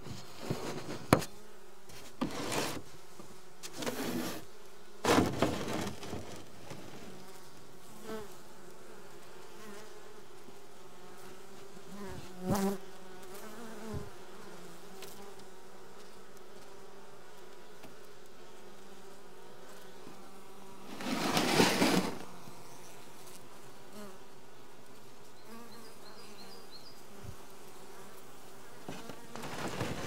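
Honeybee colony humming steadily inside a frameless Japanese box hive. A few short knocks and rustles break in; the loudest is a one-second rustle about two-thirds of the way through.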